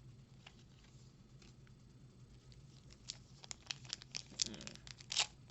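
Foil booster pack wrapper crinkling and tearing as it is ripped open, a quick run of crackles in the second half. It is a poor, uneven tear.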